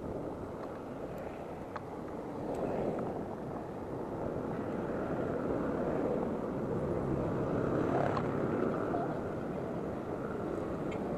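Steady rushing noise of wind and wheels on an action camera riding on a moving electric scooter, with no engine note, and a few faint ticks.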